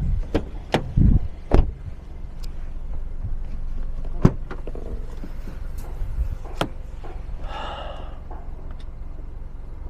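Hand work on a Hyundai's tailgate and its rubber buffer blocks: a few knocks in the first second and a half, then single sharp clicks about four and six and a half seconds in, over a steady low hum. The buffers are being screwed out so the closed tailgate presses on them and stops creaking against them.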